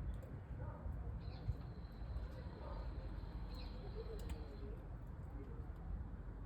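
Wood fire burning in a small steel camp stove, with a steady low rumble and scattered small crackles. Faint bird calls in the background.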